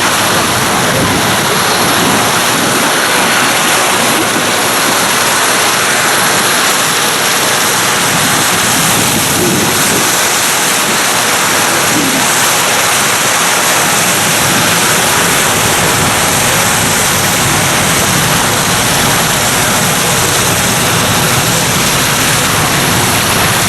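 Westland Sea King helicopter running, a loud steady rush of rotor and twin-turboshaft turbine noise. A deeper rumble joins in partway through.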